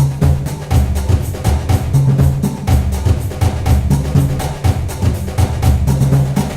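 Background music with a steady drum beat: bass drum and snare over sustained low bass notes, with a wood-block-like percussive click.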